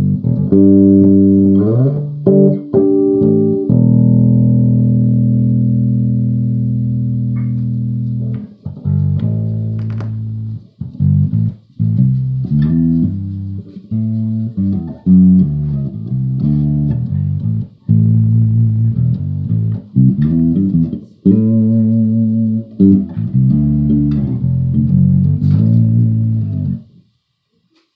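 Electric bass guitar played fingerstyle through an amp: a few plucked notes, then one long note left ringing out for about four seconds, then a run of short, rhythmic notes that stops about a second before the end.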